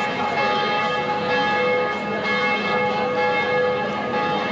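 Church bells of St. Stephen's Basilica ringing, several bells sounding together with their tones overlapping and ringing on.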